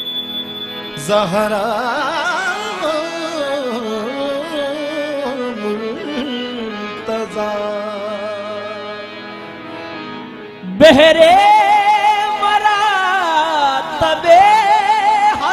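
Qawwali singing: a lead vocalist sings a long ornamented phrase over a steady harmonium drone. About eleven seconds in, a louder, higher voice takes up the line.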